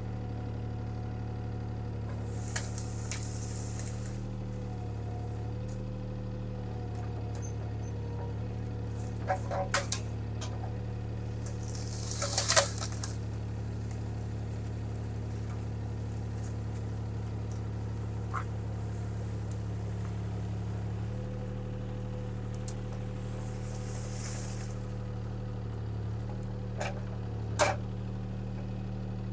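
Bobcat T300 skid steer engine running steadily, its note shifting slightly about two-thirds of the way through. A few brief rustles and knocks of brush and limbs handled by the grapple break in now and then.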